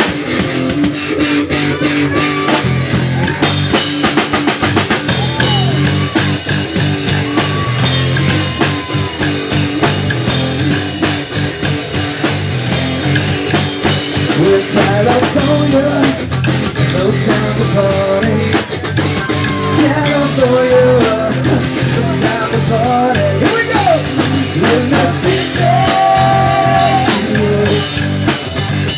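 Live rock band playing an instrumental passage: electric guitars, bass guitar and drum kit. The guitar plays alone at first, and the drums come in about three and a half seconds in.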